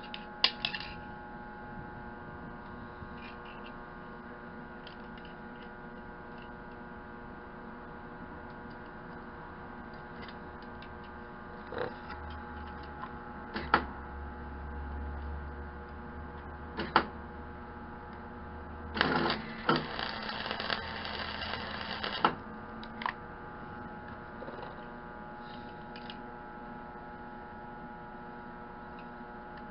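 Steady electrical hum of a semi-automatic welder, with a few sharp clicks and a crackling, hissing burst of about three seconds past the middle.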